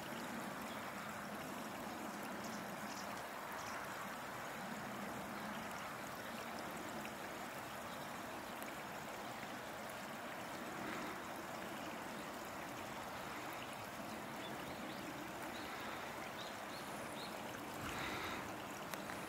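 A steady, even rushing noise, with a few faint high chirps near the end.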